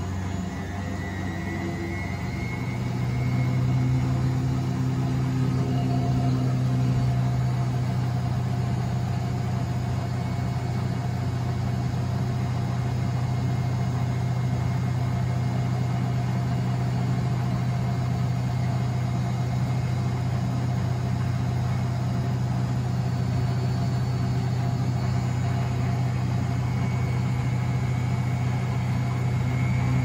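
Miele Novotronic W925 front-loading washing machine in its wash phase, the empty drum turning in water, with a steady low motor hum. The hum swells a few seconds in and then holds level.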